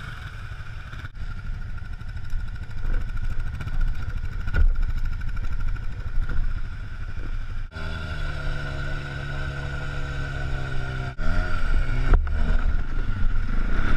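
ATV engines running and revving as a quad churns through deep mud, its wheels spinning and throwing mud. The sound changes abruptly several times, with a steady engine drone for a few seconds in the middle.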